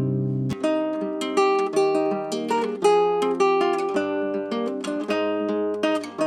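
Acoustic guitar playing a run of separately plucked notes that ring over one another, with the deepest notes dropping away about half a second in.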